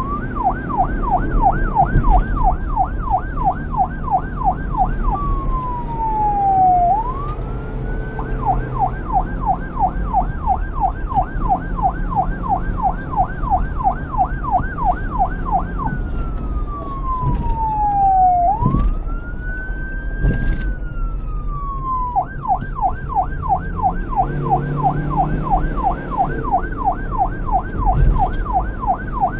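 Police car siren switching between a fast yelp, about four sweeps a second, and a slow wail that falls, rises and falls again, over a low rumble.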